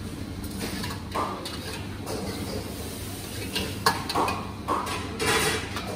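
Steel ladle scraping and knocking against a wok as a beef curry masala is stirred, in short irregular strokes with one sharp clink a little under four seconds in, over a steady low hum.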